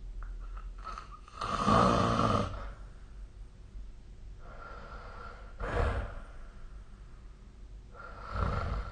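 A sleeping person snoring: three noisy breaths a few seconds apart. The first, about a second long, is the loudest.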